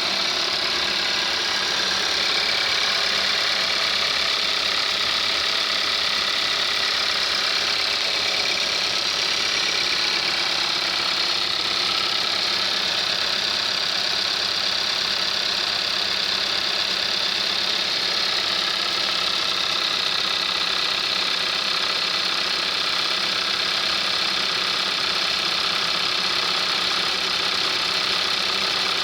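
2019 Kia Soul's GDI inline four-cylinder engine idling steadily during its warm-up after a cold start.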